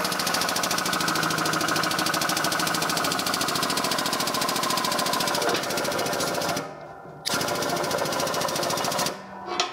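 Air-driven pump of an air-over-hydraulic bottle jack chattering rapidly as it drives a hydraulic press ram against a stuck steam-cylinder piston. It cuts out briefly about two-thirds of the way through, runs again, and stops near the end.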